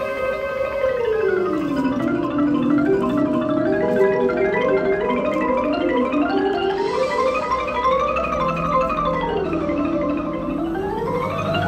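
Drum corps front ensemble mallet keyboards, marimbas among them, playing fast scalar runs that sweep down and up in pitch again and again. A low held note joins about eight seconds in.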